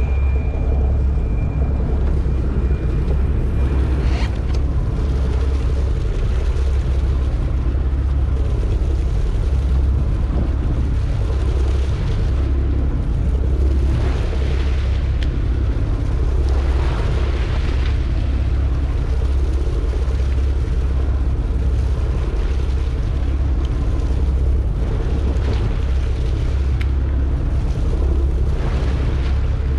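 Steady low rumble of wind buffeting the microphone on an open boat deck at sea, with a faint steady hum underneath.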